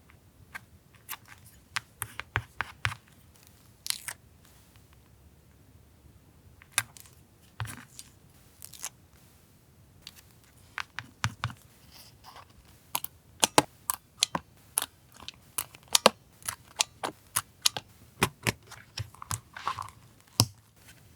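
Paper and stationery being handled on a desk during journal collage: a run of sharp, irregular taps and clicks with brief paper rustles, coming faster in the second half.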